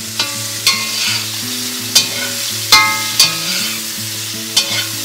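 Slotted metal spatula clinking and scraping against a cast-iron kadai as pumpkin cubes are stirred, with the sizzle of frying underneath. There are about six sharp, ringing clinks, spread through the stirring.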